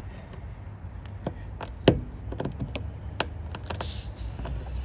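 Sharp clicks and knocks of a hand tool gripping and working a screw out of a car tire, the loudest knock about two seconds in. A faint hiss rises near the end.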